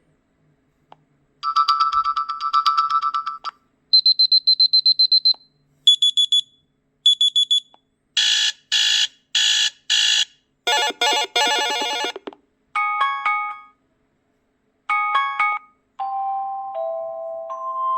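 Preloaded electronic ringtones on a Kyocera DuraForce Pro phone's speaker, several different ones in turn: a trill, rapid beeps, short pulsed chimes, with brief pauses between them. A melodic tone sequence begins near the end.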